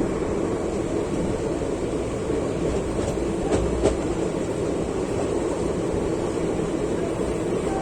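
A train running along the track: a steady rumble with a few faint clicks around the middle.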